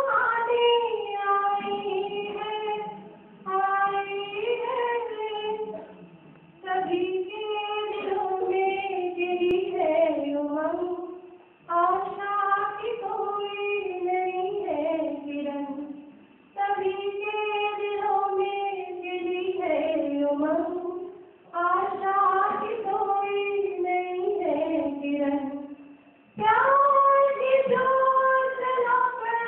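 A young girl singing solo and unaccompanied into a microphone, in a high voice, in phrases of about five seconds with short breaks for breath between them.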